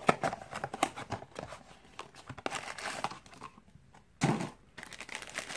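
A small cardboard blind box being torn open by hand and its black foil bag pulled out and crinkled. There is a string of sharp crackles and tearing, a louder rustle about four seconds in, then steady crinkling of the foil bag near the end.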